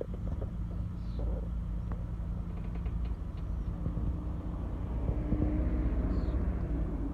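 Chevrolet Aveo idling while the steering wheel is turned, with brief high squeaks from the steering about a second in and again near the end: the squeak on turning that the owner is tracking down.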